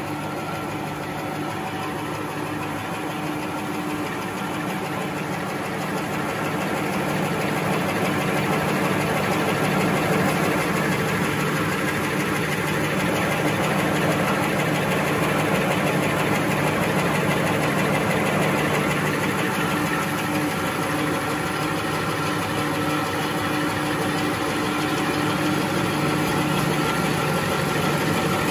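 XY-OQ-7000K high-speed two-colour napkin paper machine running: a steady, dense mechanical clatter with a few constant hums, even throughout.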